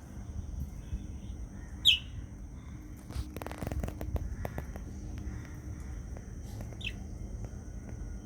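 Budgerigar giving two short, sharp chirps about five seconds apart, the first the louder; between them a run of soft clicks and rustles from the bird preening its feathers.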